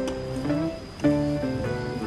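Background music: a melody of single plucked-string notes, played at a moderate pace.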